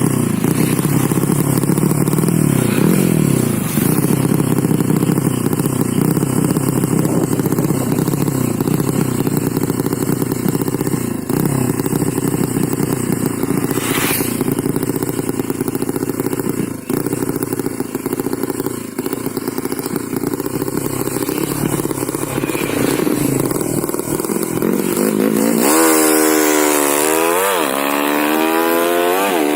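Yamaha Vega single-cylinder four-stroke motorcycle engine, tuned up to 200 cc, running steadily while being set up, then revved up and back down twice near the end.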